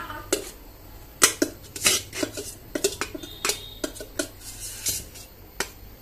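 Steel spoon scraping and clinking against the inside of a stainless steel electric kettle and a steel bowl as chicken curry is scooped out: about a dozen irregular clinks and scrapes.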